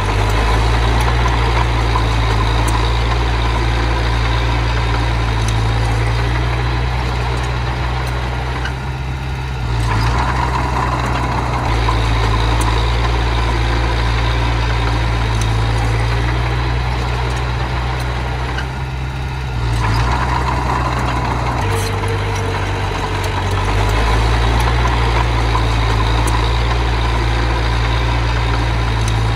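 Diesel engine of earthmoving machinery running steadily with a strong low rumble, its level dropping briefly twice and picking up again as the load changes.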